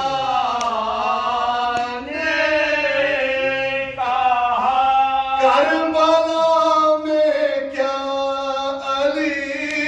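Men chanting an unaccompanied Urdu soz, a Shia elegy: a lead voice into a microphone with two supporting voices holding long notes beneath it, dipping briefly about two and four seconds in.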